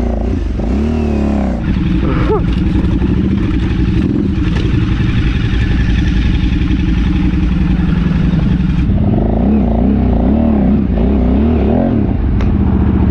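KTM adventure motorcycle's twin-cylinder engine running at low speed over rough ground, its pitch rising and falling with short throttle openings, most plainly about a second in and again in the last few seconds.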